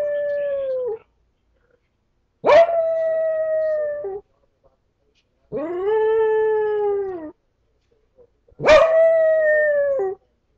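Small black dog howling: the end of one howl, then three more, each about a second and a half long with short pauses between. Each starts with a quick rise in pitch, holds steady and dips at the end; the third is lower and smoother.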